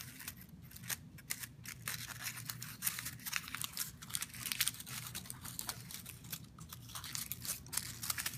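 Paper cupcake liners crinkling and crackling as they are crimped and crushed by fingernail into petals: a dense, irregular run of crackles over a steady low hum.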